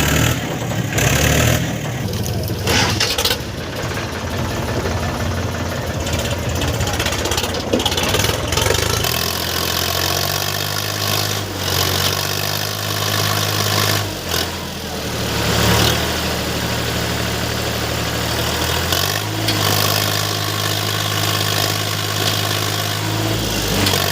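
Heavy diesel machinery engine running under varying load, its pitch and level shifting several times as it works.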